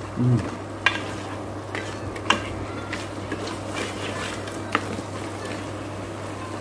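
A spatula stirring crab masala in thick, gently sizzling gravy in an aluminium pressure cooker pan, with three sharp knocks against the pot side, about a second, two and a half seconds and five seconds in. A short low hum sounds just at the start.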